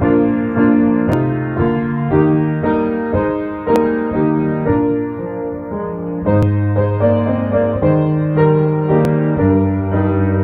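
Piano music, a slow piece of held chords with a new chord or note about every second.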